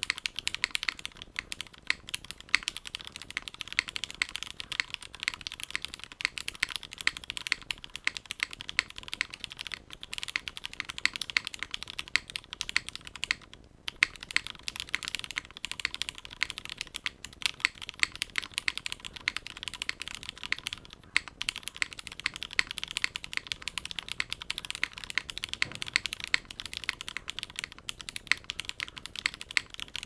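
Typing on a Monokei KFE CE custom mechanical keyboard with lubed and filmed Cherry MX Black linear switches, a polycarbonate plate and GMK doubleshot ABS keycaps: a fast, continuous patter of keystrokes with a couple of brief pauses, one about halfway through.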